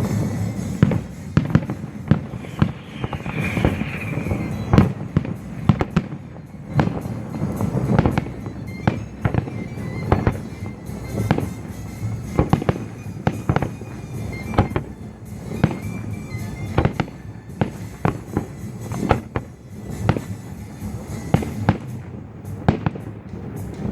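Fireworks display shells bursting in a rapid, irregular string of sharp bangs, several every second, with music playing underneath.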